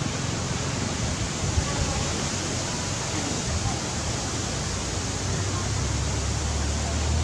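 Steady rushing noise with a low hum underneath that strengthens a little near the end.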